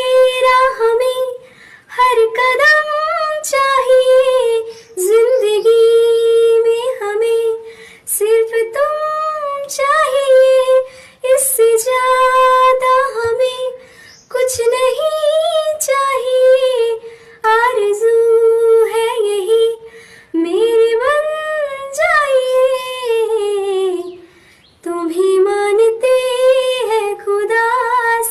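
A high female voice singing a melodic Hindi song without accompaniment, in phrases of about two seconds separated by short breaths.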